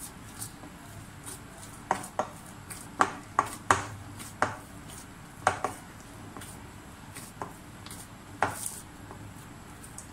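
Irregular knocks and taps of a glass mixing bowl as hands knead a stiff dough in it, the bowl shifting and clinking against the counter and the hands, loudest in a cluster through the middle.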